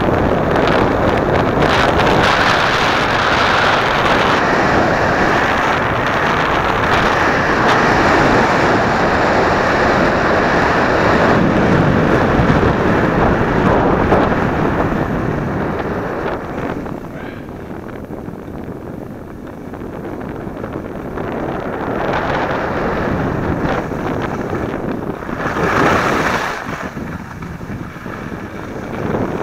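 Wind rushing over a helmet or action-camera microphone during a downhill ski run, a steady noisy roar that eases off about two-thirds of the way through and surges briefly again near the end.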